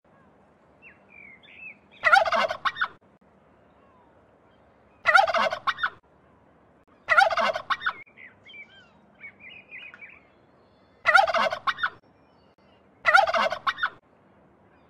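Turkey tom gobbling: five rapid, warbling gobbles a few seconds apart, with softer high chirps between them.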